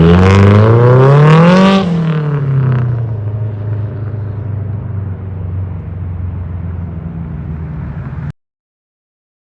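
Turbocharged Nissan S13's engine accelerating, its pitch climbing for about two seconds, then falling off as the throttle is lifted and settling into a quieter steady run that fades. The sound cuts off abruptly about eight seconds in.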